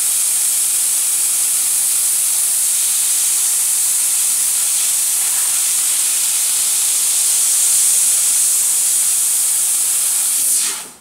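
Steady, loud hiss of nitrogen assist gas jetting from a fiber laser cutter's nozzle while it cuts silver. The hiss stops suddenly near the end as the gas shuts off.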